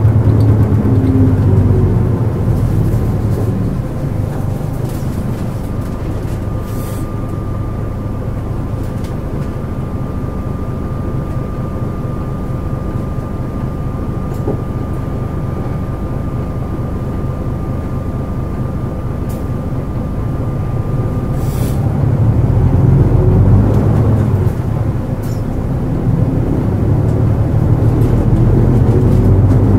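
Nissan Diesel JP city bus diesel engine, heard from inside the passenger cabin. It pulls strongly at first, then runs low and steady for about twenty seconds with a faint steady whine. Near the end it revs up again, with a short dip in the engine note, and pulls away.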